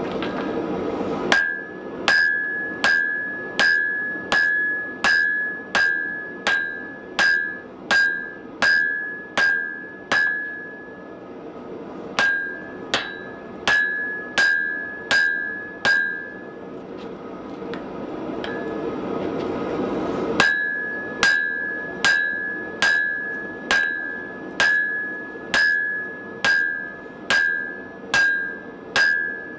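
Hammer blows on hot steel on an anvil, about one and a half a second, each strike ringing at one clear high tone. The blows come in three bouts. Between the bouts there is a steady rushing noise.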